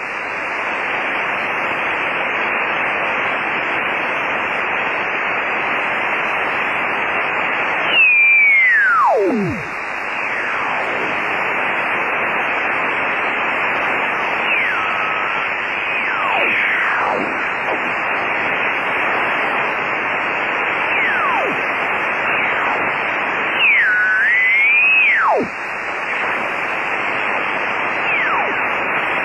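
Shortwave receiver hiss from a Kenwood HF transceiver as its dial is tuned upward across the 20 m amateur band. Station signals pass through as whistles that slide down in pitch, with louder ones about eight and about twenty-four seconds in.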